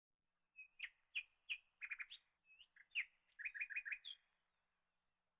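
A bird chirping: a run of short, sharp notes and quick trills that stops about four seconds in.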